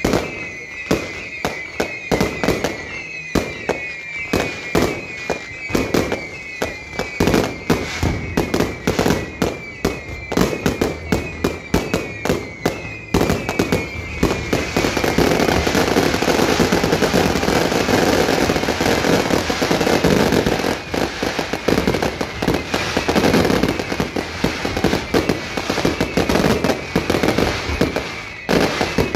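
Fireworks display: a rapid string of bangs, many paired with a short falling whistle. From about halfway the bangs merge into a dense, unbroken barrage for several seconds, then separate bangs return near the end.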